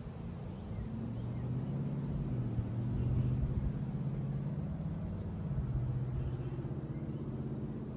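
A motor vehicle's engine humming as it passes, building over the first few seconds and then fading away.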